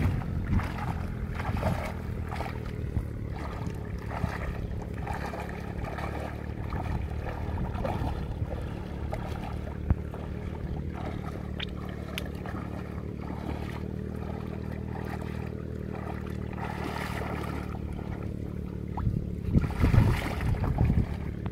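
Shallow muddy water sloshing as a man wades through a flooded rice field, with a louder run of splashing near the end, over a steady low drone.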